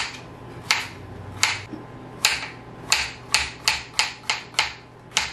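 Kitchen knife chopping yellow squash and courgette into rounds on a cutting board: sharp knocks of the blade on the board, slow at first, then quickening to about three a second in the second half.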